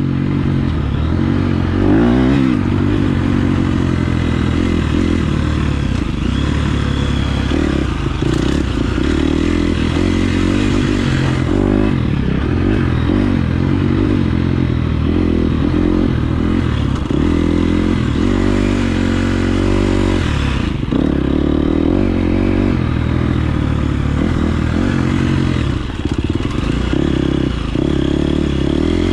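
KTM 350 SX-F single-cylinder four-stroke motocross engine running under riding load, its pitch rising and falling again and again as the throttle opens and closes.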